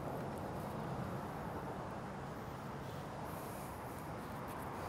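Quiet, steady background noise: room tone, with no distinct sound events.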